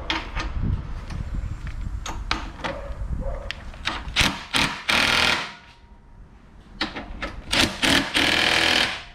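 Cordless impact driver hammering a nut tight on a truck-frame bolt, in two short runs: a brief one about five seconds in and a longer one near the end. Clicks and knocks from handling the tool and fittings come before.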